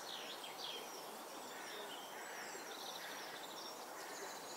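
Small songbirds calling and singing, a scatter of short chirps and whistles with a fast trill about three seconds in, over a steady background hiss.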